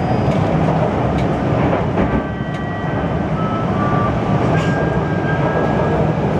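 Interior noise of an MTR C-Train on the move: a steady loud rumble of wheels and running gear, with brief high-pitched tones coming and going at several different pitches.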